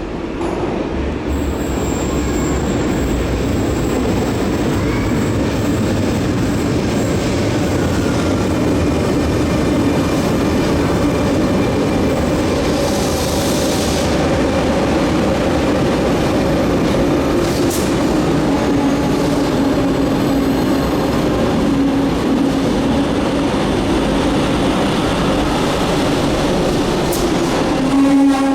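Electric passenger train running through a station. Its wheels give a thin, high squeal for the first several seconds over a steady hum and rolling noise.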